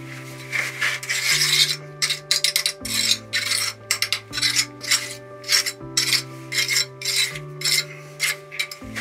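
Hand trowel scraping over wet concrete in quick, irregular strokes as a freshly poured slab is smoothed, with background music playing underneath.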